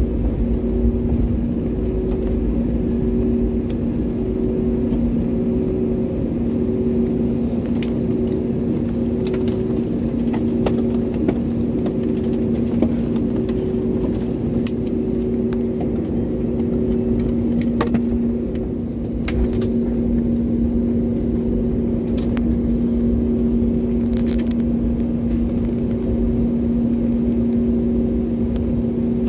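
Cabin noise of an Airbus A320-family jet airliner rolling out and taxiing after landing, heard by the window over the wing: a steady engine hum with two low tones, the higher one pulsing about once a second, over a low rumble. Faint clicks and rattles come and go.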